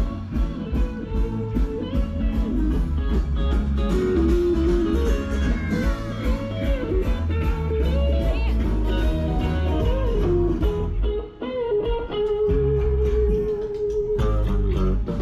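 Blues-style music: an electric guitar plays a lead line with bent notes over bass and drums, ending on a long held note with vibrato near the end.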